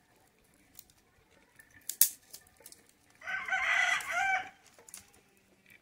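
A rooster crowing once, a loud call of about a second and a half starting a little past the middle. A sharp snap or knock about two seconds in.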